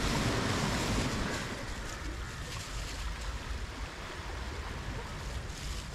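Sea surf washing onto the beach, a steady rush that is a little louder in the first second.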